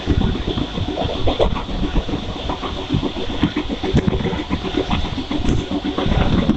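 Mumbai suburban local train running, heard from on board: a loud, continuous rumble of wheels and carriage with many irregular knocks and rattles.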